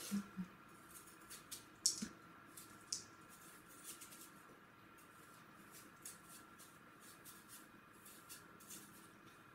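Kitchen knife cutting crisp raw apple into thin wedges, a few short crunchy cuts in the first few seconds, then only faint small ticks as the core is trimmed out in the hand.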